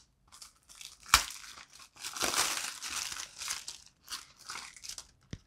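Clear plastic shrink wrap crinkling as it is pulled off and handled around a DVD case, with a sharp click about a second in.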